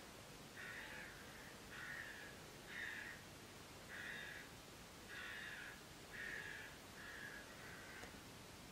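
A bird calling in a series of about eight short calls, roughly one a second, the last two close together.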